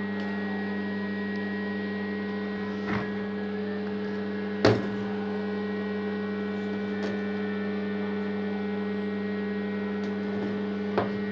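Steady mains-frequency hum from a homemade 9 kW AC welding transformer that is switched on. A sharp knock comes a little under halfway through, with two fainter knocks about 3 s in and near the end.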